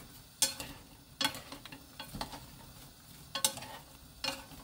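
Two wooden spatulas stirring and tossing sliced onions in a nonstick frying pan over high heat, with about five sharp clacks of wood against the pan over a faint sizzle.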